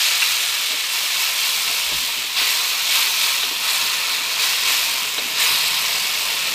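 Ground chili spice paste frying in hot oil in a wok, a steady sizzling hiss as it is stirred with a wooden spatula.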